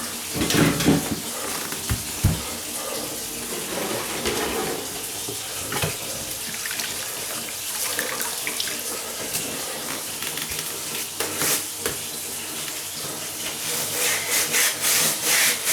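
Water running and splashing at a kitchen tap or sink, with a few light knocks; the splashing grows louder near the end.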